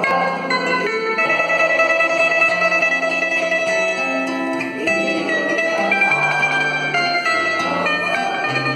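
A small guitar-like stringed instrument played solo, a plucked melody over held bass notes that step from one pitch to another.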